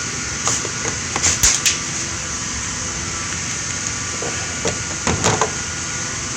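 The 2010 Ford Explorer's engine runs steadily at idle as it warms up after a heater hose replacement. A few sharp knocks and clatters come about a second in and again near five seconds.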